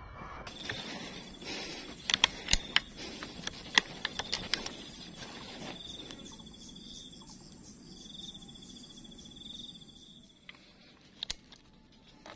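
Insects trilling in a steady high pitch, the trill breaking into pulses in the second half, over the hum of an outdoor scrub setting. A run of sharp clicks and knocks comes in the first few seconds, with two more near the end.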